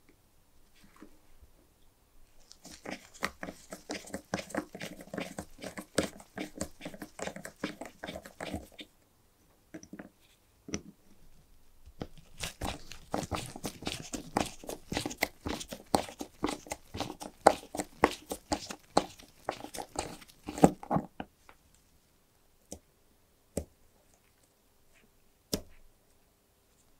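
A small flat screwdriver scraping and crunching against rusted, corrosion-crusted slotted screws on a corroded iron mount as they are worked loose. It comes in two spells of dense, gritty scratching several seconds long, followed by a few single clicks.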